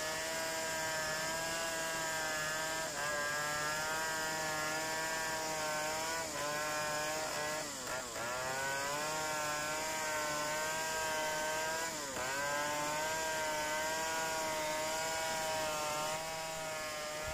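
Two-stroke chainsaw running at full throttle while ripping a wooden board lengthwise, the engine note dipping briefly several times as the chain bogs in the cut and then recovering.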